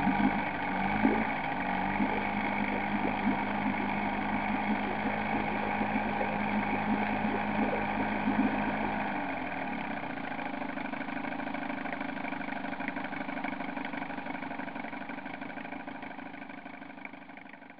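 Restored 1957 Evinrude Fisherman 5.5 hp two-cylinder two-stroke outboard running in a test barrel of water. It speeds up about a second in and holds a fast idle, then is throttled back to a slower idle about nine seconds in, fading out near the end.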